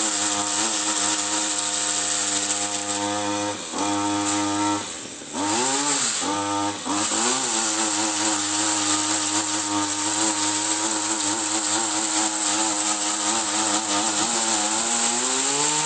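Pole chainsaw running at high speed, cutting through an overhead tree limb. Its pitch drops and recovers a few times around the middle and again near the end as the chain bites into the wood.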